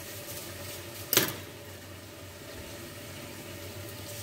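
A single sharp knock about a second in as a whole netted melon is handled on a plastic cutting board, over a steady background hiss.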